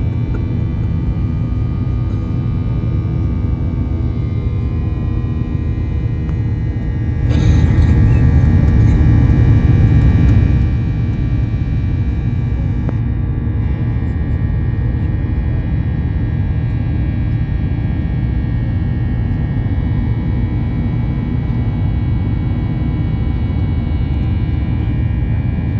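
Jet airliner cabin noise during the climb after takeoff: a steady, loud engine and airflow rumble with several steady high tones over it. About seven seconds in a sharp click sets off a louder rush that lasts a few seconds, then the noise settles back to its steady level.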